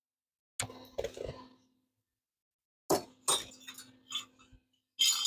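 Scrap-metal parts clinking and clattering as they are handled and positioned with locking pliers, in three short bursts of sharp knocks: about half a second in, around three seconds in, and near the end.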